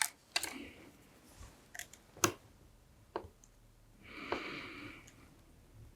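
A few light, isolated clicks and taps of small tools against a circuit board during soldering, the sharpest a little over two seconds in, with a soft hiss lasting about a second near four seconds in.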